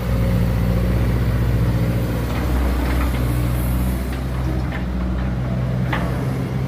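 Diesel engine of a Hyundai 170W-7A wheeled excavator running steadily while the boom and bucket are swung and raised.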